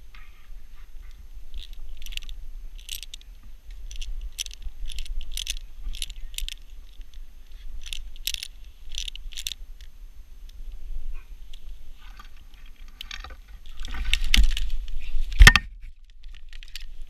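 Metal climbing hardware clinking and fir branches brushing and scraping as the climber moves and handles gear, with a louder clatter and one sharp knock near the end. A low wind rumble runs underneath on the microphone.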